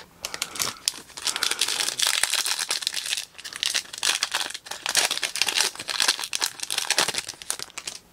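Foil wrapper of a 2023 Illusions football trading-card pack being torn open and crinkled by hand: a dense crackle, with a short pause about three seconds in.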